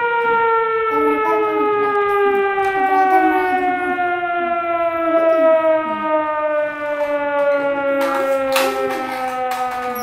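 A siren holding one long tone that slides slowly and steadily down in pitch, with a few knocks near the end.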